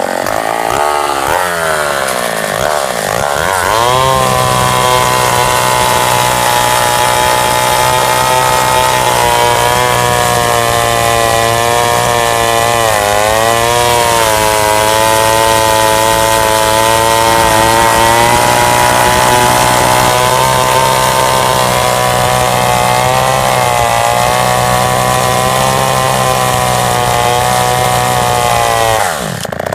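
Vintage 1960s Sears two-stroke chainsaw revving up over the first few seconds, then held at high revs with a brief dip near the middle, dropping off just before the end. Its dull chain is working at a log.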